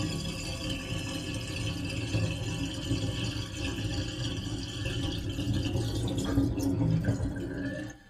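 Water draining down a drain in a steady rush that cuts off abruptly near the end.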